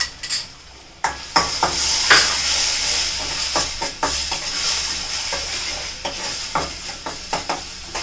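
Curd added to a kadhai of tomato masala frying in ghee: a sizzle breaks out suddenly about a second in and carries on, with a spoon clicking and scraping against the pan as it is stirred.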